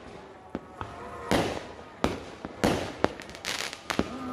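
Fireworks going off: a string of sharp bangs, each trailing off, coming about every half second from a second in, with a quick run of crackles about three and a half seconds in.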